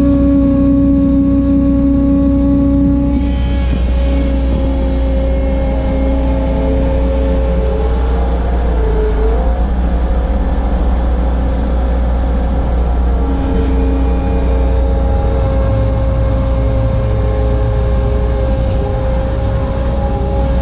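Bobcat 743 skid steer running steadily under work, its engine and hydraulics giving a loud rumble with whining tones that shift in pitch, dipping briefly about nine seconds in.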